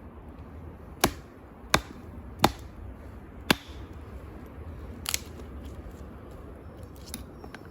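Wooden branches being broken up: six sharp cracks at irregular intervals, the first four close together in the first few seconds.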